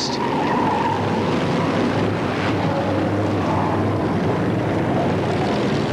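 Several Formula 1 stock car engines running together as the cars race round the oval, a steady dense drone with engine notes that waver in pitch.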